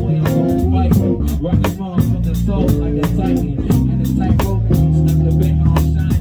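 Live funk band playing an instrumental passage: a drum kit keeps a steady beat under sustained low bass notes and electric guitar.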